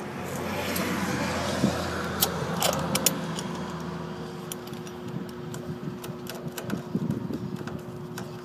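Small metallic clicks and clinks of screws and a screwdriver as the gauge's lens cover is screwed on. Under them, a steady hum and a broad rushing noise that swells and fades over the first half.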